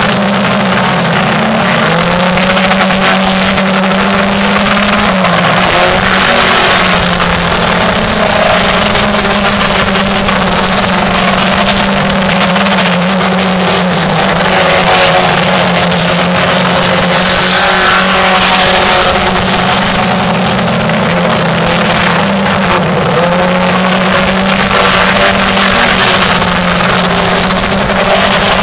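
Race car engines running on a dirt oval, loud and continuous, their pitch rising and falling as the cars accelerate and lift around the turns.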